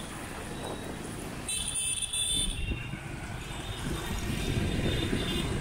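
Car driving in city traffic: a steady low rumble of engine and road noise that grows somewhat louder in the second half, with a brief high-pitched sound lasting about a second, about a second and a half in.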